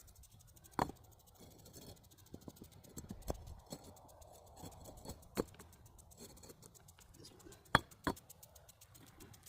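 Masonry hand work on bricks and mortar: a few sharp clicks and knocks spaced a second or two apart, with quiet scraping in between.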